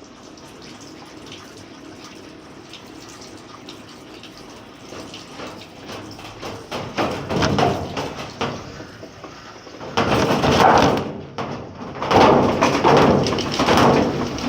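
Electrolux LTE 06 top-load washing machine spinning up on its third spin ramp with an unbalanced load of towels, water spun out of the basket rushing and splashing. The sound starts low and steady, then comes in growing, uneven surges from about halfway, loudest near the end.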